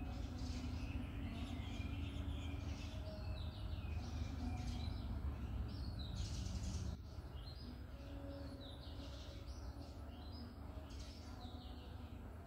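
Small birds chirping over and over in the background, short quick chirps, over a steady low hum that drops slightly about seven seconds in.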